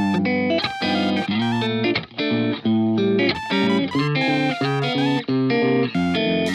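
Background music led by electric guitar, with notes changing in a steady rhythm.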